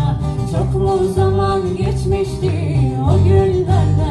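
Rebetiko song played by a band: plucked strings over a steady bass beat, with a melody line.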